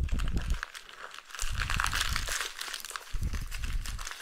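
Plastic shrink-wrap being torn off a small boxed-earbuds package and crumpled by hand: a dense, crackling crinkle, with a few dull low thuds from handling.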